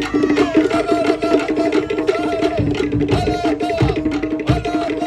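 Cook Islands drum ensemble playing a fast, driving rhythm for a drum dance: rapid pitched strokes on wooden drums under deep bass-drum beats that fall about once a second.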